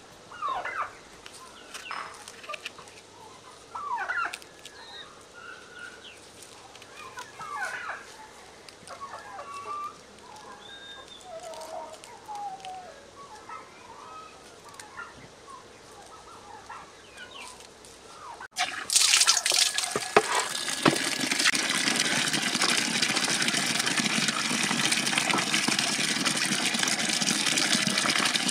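Farmyard poultry clucking and calling in short, scattered calls. About eighteen seconds in, an abrupt cut brings in loud, steady running water.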